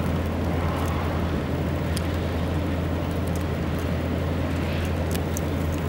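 Vehicle engine idling: a steady low hum under a constant hiss, with a few faint ticks.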